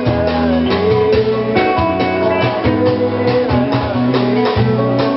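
Live band playing a song's instrumental intro: guitars over a steady drum-kit beat.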